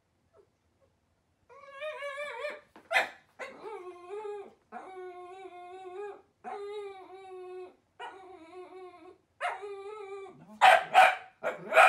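A dachshund whining to beg for food: about six long, high, wavering whines in a row, then a few loud barks near the end.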